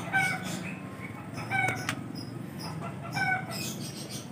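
A chicken calling in short, repeated calls, three of them about a second and a half apart. A single sharp click comes about two seconds in.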